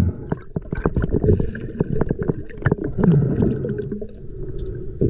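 Muffled water sloshing and gurgling around the camera at the sea surface, broken by many irregular knocks and clicks as gloved hands handle a speared fish.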